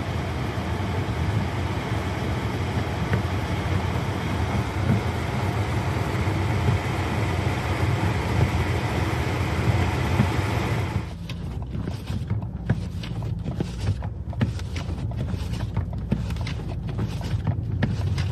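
Blizzard wind blowing hard, a steady roar with heavy low rumble on the microphone; about eleven seconds in the hiss thins and it turns gusty, buffeting the microphone in uneven blasts.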